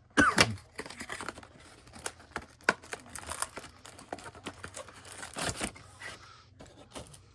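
Cardboard box and wrapped trading-card packs rustling and crinkling as the packs are taken out of the box, with irregular clicks and scrapes. It is louder just after the start and again about five and a half seconds in.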